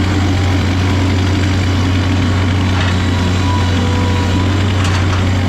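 A heavy engine idling with a steady low hum.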